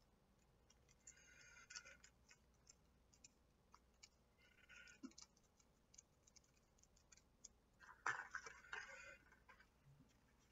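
Faint crinkling and clicking of a plastic duck sauce packet being torn open and squeezed out, in a few short rustles about a second in, midway and again near the end.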